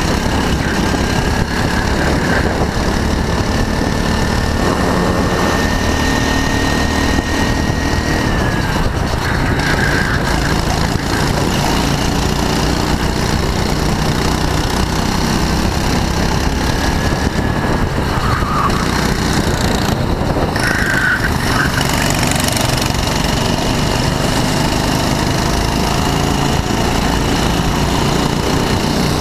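Go-kart engine running at racing speed, heard from onboard the kart along with the engines of the karts around it. The engine pitch rises slowly and drops about eight seconds in.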